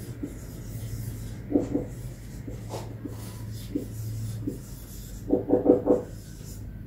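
Marker pen squeaking and rubbing on a whiteboard as a word is written in short strokes, with a quick run of squeaks near the end, over a steady low hum.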